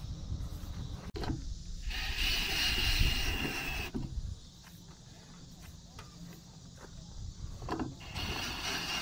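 Cordless drill cutting into an aluminium mounting plate with a countersink bit: a harsh, whining grind of metal, twice, with a quieter pause between.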